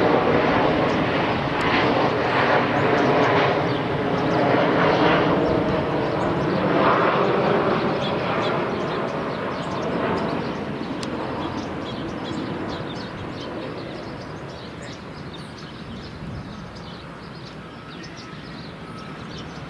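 An airplane passing overhead. Its engine noise is loud at first and fades steadily away over the following seconds.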